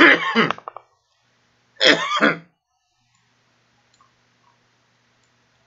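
A man clearing his throat twice: once at the start, and again about two seconds in. After that there is only a faint low room hum.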